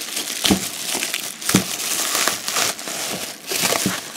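Plastic bubble wrap crinkling and rustling as it is handled and unwrapped from a boxed figure, with irregular crackles and a few sharper clicks.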